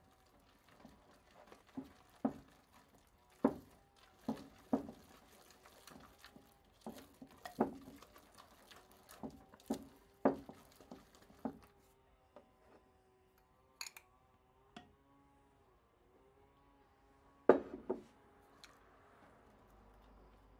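Kitchen utensils knocking and clinking irregularly against a bowl or baking pan, with wet dripping sounds of batter being handled.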